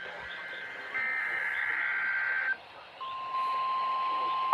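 NOAA Weather Radio test signal heard over a radio with hiss. About a second in comes a burst of SAME digital header tones, two pitches switching rapidly, lasting about a second and a half. After a brief pause, the steady 1050 Hz warning alarm tone starts about three seconds in and holds.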